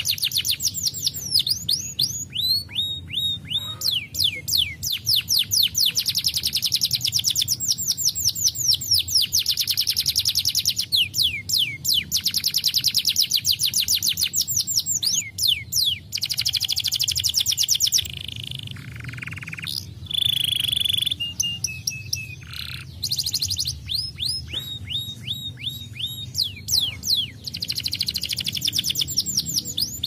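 Domestic canary singing: long rolling trills of quick, rapidly repeated falling notes. About 18 seconds in, the trills give way to a few held and buzzy notes, then resume.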